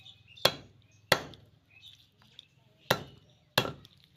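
A large curved chopping blade hacking raw mutton on a wooden log, four sharp chops in two pairs.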